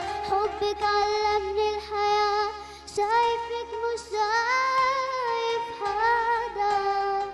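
A boy singing a slow Arabic melody with ornamented, wavering phrases, accompanied by held notes on an electronic keyboard.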